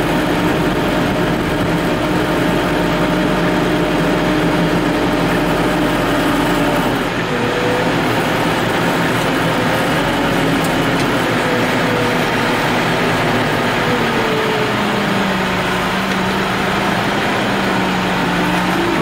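Case IH Farmall 115U tractor's diesel engine running, heard from inside the cab, while the front loader works. Its whine holds a steady pitch, then wavers from about seven seconds in and settles lower near the end as the loader is operated.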